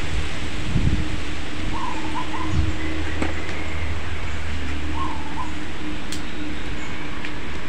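A bird calling twice, a short wavering call repeated about every three seconds, over a steady hiss and low hum with a couple of dull low thumps.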